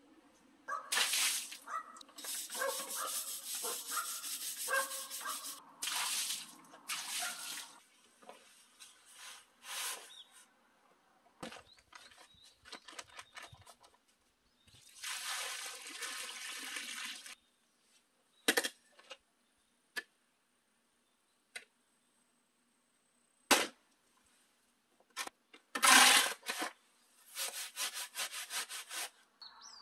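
Work with stone and cement on a concrete slab: a rock scraping and knocking over rubble at first, then cement powder poured out of a paper sack in a rushing burst about halfway through. Near the end a steel shovel strikes the concrete a few times and then scrapes repeatedly as it turns the dry mix.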